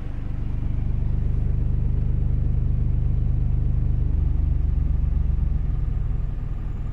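12-inch subwoofer in a home-built bandpass enclosure playing a sine-wave test tone from a phone frequency-generator app, a loud, steady, very deep tone. It is stepped down from 24 Hz to 21 Hz partway through.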